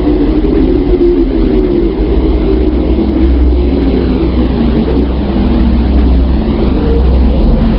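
Steady, loud, deep droning hum with an even hiss above it: a sonified space recording presented as the sound of the Moon, in which electromagnetic signals have been converted into audible sound.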